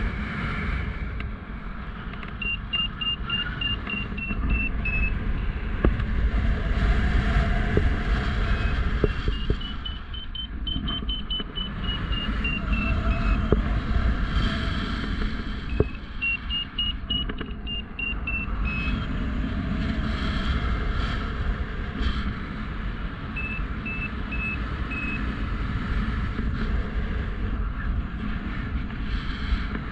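Strong wind buffeting the microphone during a paraglider flight, a steady low rumble throughout. Over it a flight variometer beeps in four runs of quick high pulses whose pitch rises and then falls, signalling the glider is climbing in lift.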